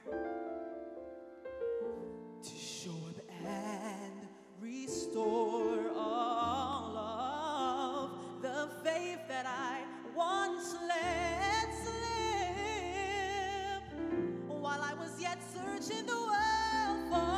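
A woman singing a slow ballad solo into a microphone, holding long notes with wide vibrato over backing music. A low bass comes in about six seconds in and the accompaniment fills out after that.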